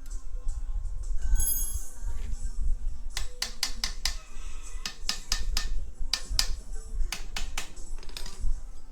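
Background music, with a run of sharp clicks from about three seconds in until near the end.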